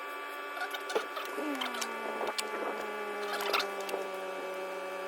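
A steady hum made of several tones, with scattered sharp clicks and knocks of plastic trim panels being handled and pressed back onto their clips.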